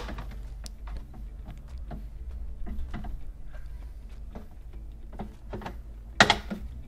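Plastic refrigerator duct cover being pried loose with a thin tool: scattered small clicks and scrapes of plastic, then a sharper snap about six seconds in as the cover pops free.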